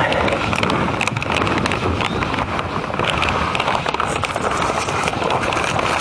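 Stones knocking and scraping as they are set by hand behind a cinder block, many short irregular knocks over a steady rushing noise.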